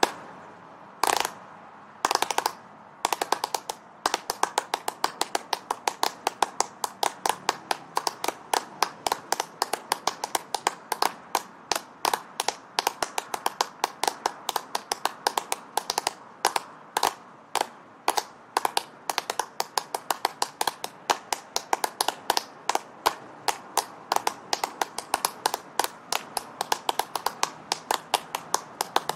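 Seven people clapping their hands, each at a slightly different steady tempo, so the claps drift in and out of step with one another. A few single claps about a second apart open it, then from about three seconds in the claps pile up into a dense, shifting patter.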